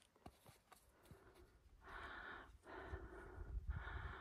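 A person breathing hard: about four loud breaths, each under a second, starting about two seconds in, with a low rumble on the microphone.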